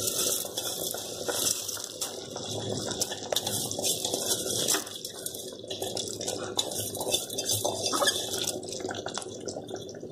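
Spiced biryani water boiling in a pressure cooker pot, with steady bubbling and popping as jeera samba rice is tipped in at the start.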